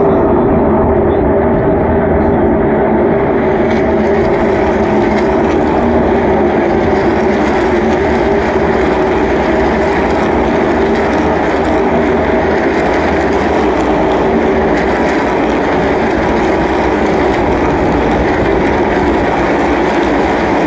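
NASCAR Cup Series stock cars racing around the track at speed, their V8 engines making a loud, steady drone.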